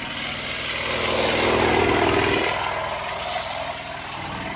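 Small motorcycle engine running as it passes close by, growing louder to a peak about two seconds in and then fading.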